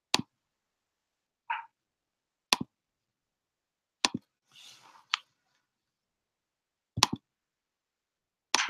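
Six sharp, isolated clicks spaced one to two seconds apart, with a short mid-pitched blip about 1.5 s in and a brief faint hiss a little after the middle; silence between them.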